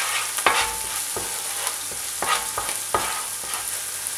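Sofrito of onion, green pepper and garlic with ñoras and sweet paprika frying in olive oil in a pan, sizzling steadily while a utensil stirs it, knocking against the pan four times with a short ring.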